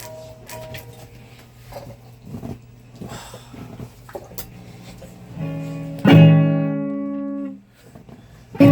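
Guitar played: quiet picked notes and string noise, then a loud chord strummed about six seconds in that rings for over a second before being cut off, and another chord struck near the end.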